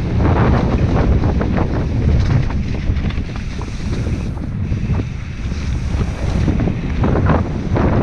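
Wind buffeting a helmet-mounted GoPro Hero 5's microphone as a mountain bike descends fast on a dirt trail, with the tyres rumbling over the loam and the bike rattling and knocking over bumps.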